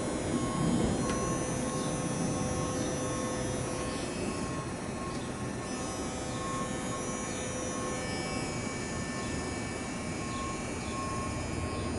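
Steady shop-floor machine rumble with a high electronic beep repeating a little under twice a second, the pattern of a vehicle's back-up alarm.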